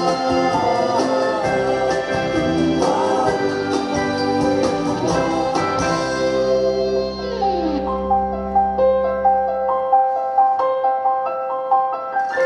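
Dance music played back over speakers: a song with a voice over full backing, which thins about halfway through into a light melody of short repeated keyboard-like notes. The deep bass stops near the end.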